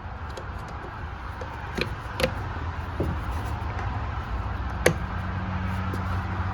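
A few separate sharp clicks and knocks of hand work on the wiper motor assembly, over a steady low hum. A second steady low tone joins the hum about five seconds in.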